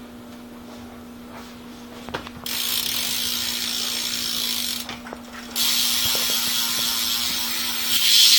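A bicycle rear hub's freewheel ratcheting fast as the back wheel spins freely: a loud, dense buzz of pawl clicks. It starts a couple of seconds in, breaks off briefly around five seconds, then resumes and is loudest near the end.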